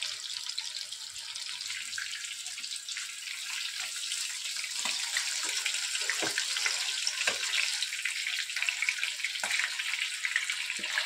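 Batter-coated rohu fish steaks frying in hot oil in a shallow pan: a steady sizzle and crackle, with a few sharper ticks scattered through the second half.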